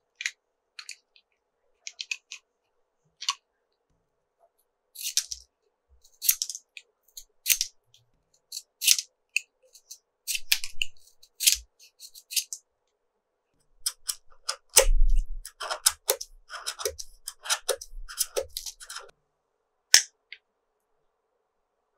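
A craft knife shaving the wood and lead of colored pencils to a point: short, sharp scraping strokes in uneven runs with pauses between, quickest and densest about two-thirds of the way through.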